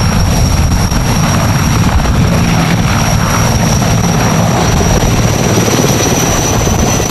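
Erickson Air-Crane (Sikorsky S-64 Skycrane) heavy-lift helicopter lifting off and climbing into a low hover. A steady, rapid rotor beat runs under a high, steady turbine whine.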